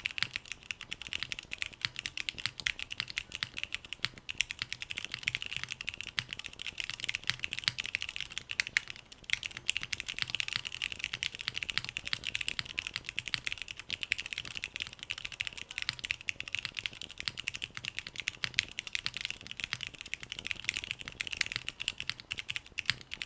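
Steady, fast typing on a mechanical keyboard with stock, unlubed Cherry MX Black Hyperglide linear switches on a polycarbonate plate in a gummy O-ring mount, with GMK Cherry-profile keycaps. The keystrokes come thick and continuous, with a brief pause about nine seconds in.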